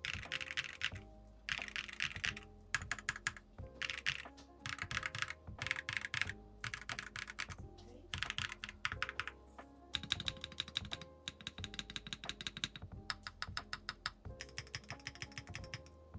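Fast typing on a mechanical keyboard with Keygeek × Moyu Mingding linear switches, the keystrokes coming in bursts of about a second with short pauses between, the sound of the switches deep and thocky. Background music plays under the typing.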